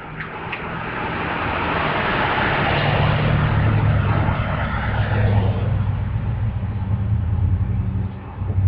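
A motor vehicle's engine running close by, growing louder over the first few seconds. A rush of road and engine noise dies away after about five seconds while a low engine hum carries on.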